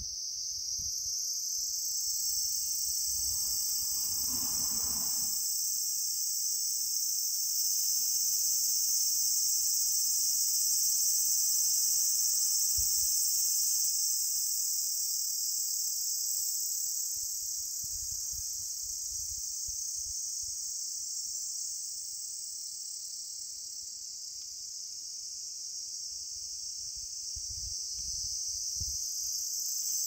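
A steady, high-pitched chorus of insects chirring without a break.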